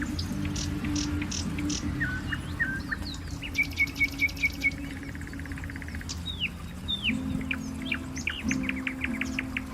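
Several small birds chirping and calling: short downward-sweeping chirps, a quick run of about five notes around four seconds in, and a fast series of chirps near the end. A steady low hum runs underneath.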